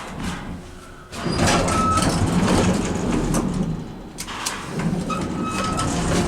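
Elevator doors sliding shut with a loud rattling rumble, with two brief high tones over it. The doors stop short of fully closed.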